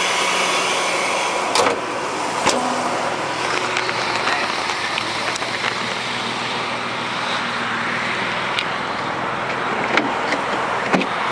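A 2006 Jeep Liberty's 3.7-litre V6 idling steadily, with a few sharp knocks and clicks over it.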